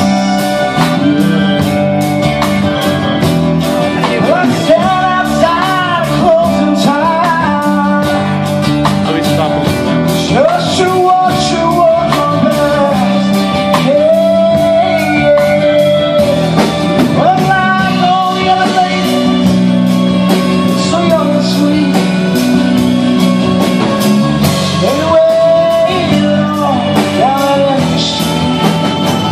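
Live rock band playing a song: a drum kit keeps a steady beat under electric bass and acoustic guitar, with a melody line that bends and slides on top.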